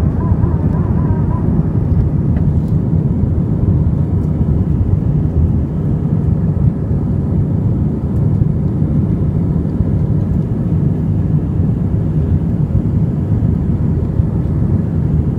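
Cabin noise of an Airbus A319 in its initial climb just after takeoff, heard from a window seat over the wing: the engines under climb power and the rushing air make a loud, steady low rumble.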